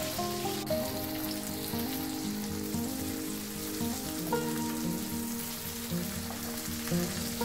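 Tomato slices sizzling as they fry in oil in a pan, under background music of held, stepping notes.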